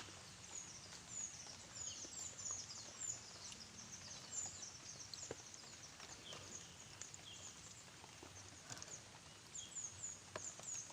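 Chorus of many short, high-pitched chirps, each falling in pitch, repeating and overlapping throughout over a low hiss of ambient outdoor noise, with a few faint clicks.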